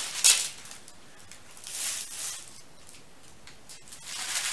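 Rustling and crinkling of a dress's packaging and embroidered fabric as it is handled: a sharp crinkle at the start, softer rustles about two seconds in and again near the end.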